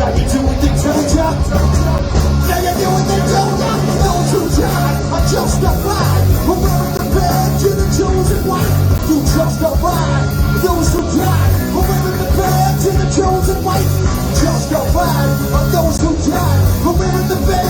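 Rock band playing a heavy riff with distorted electric guitar, bass and drums, with some shouted vocals.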